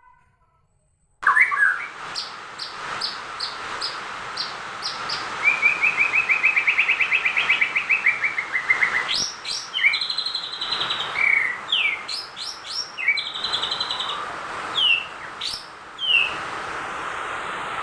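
A contest songbird singing a varied song. It begins suddenly about a second in with short high notes, then a long rattling trill, then more trills and quick down-slurred whistles.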